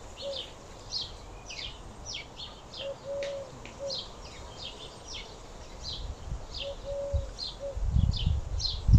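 Small songbirds chirping, short high down-slurred notes several times a second, with a dove's three-note cooing phrase (short, long, short) repeated about every four seconds. Low rumbling thuds come near the end.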